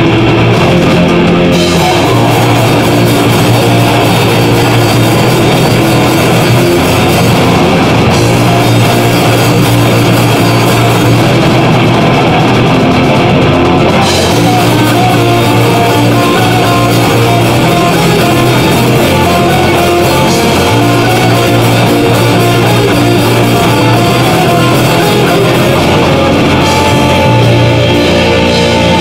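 Extreme progressive metal band playing live: heavily distorted electric guitars over bass guitar and a drum kit, with long held low notes, loud and dense.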